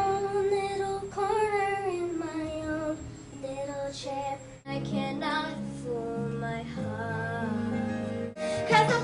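Young singers performing show-tune snippets over backing music, in short clips spliced together. The singer and song change abruptly about halfway through and again near the end.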